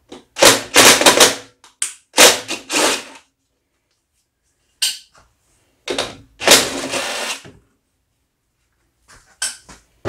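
Power driver running in several short bursts, about a second each, with quiet gaps between them, spinning off the 10 mm nuts that hold a push mower's fuel tank.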